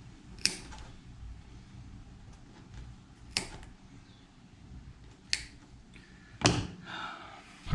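Four sharp clicks from hand tools being handled, spaced one to three seconds apart, the last the loudest.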